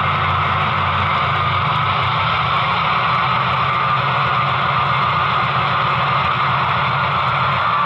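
HO-scale EMD F7 diesel locomotives' sound decoders playing a steady diesel engine rumble through their small onboard speakers, with a hiss of running noise over it.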